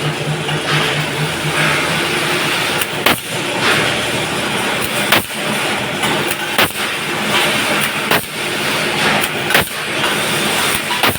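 Concertina razor-wire coil-making machine running with a steady mechanical din. From about three seconds in, a sharp clack comes every one and a half to two seconds.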